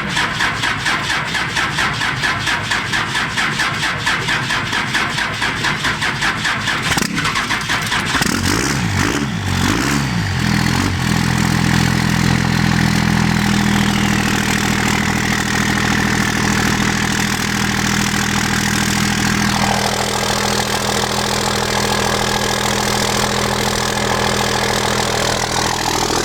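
Cummins diesel engine cold start: the starter cranks with an even pulsing for about eight seconds, the engine catches and fires up on the first try, then settles into a steady idle. A high whine falls in pitch a few seconds after it catches.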